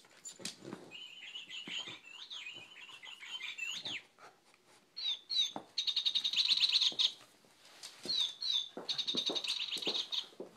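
Plush chicken squeaky toy being squeaked over and over as a cocker spaniel chews it. Wavering squeaks come in the first few seconds, then two long runs of rapid squeaking, one about halfway and one near the end, each opening with a couple of short rising squeaks.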